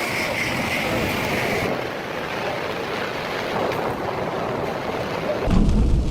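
Steady rushing storm noise of wind and rain, its character changing abruptly about two seconds in. A loud low rumble starts near the end.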